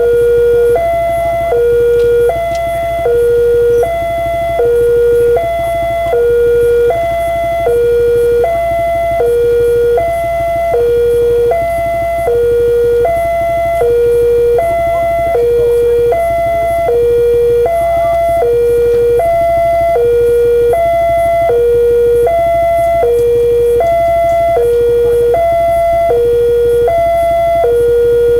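Electronic level-crossing warning alarm sounding continuously, an even two-tone alternation of a low and a high tone, each held about half a second: the signal that a train is approaching and the barrier is down.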